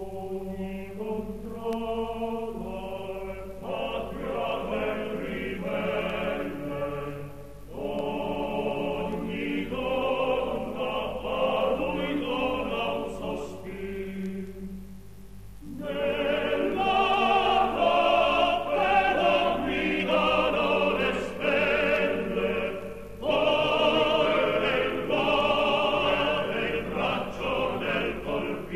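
Music: a choir singing in an operatic style, the voices wavering with vibrato, in phrases broken by short pauses, the longest about halfway through.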